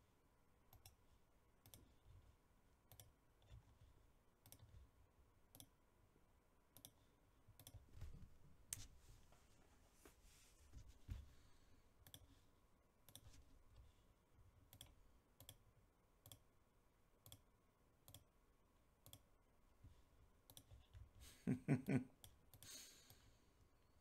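Near silence with faint, sharp computer mouse clicks every second or so. A short low hum stands out near the end.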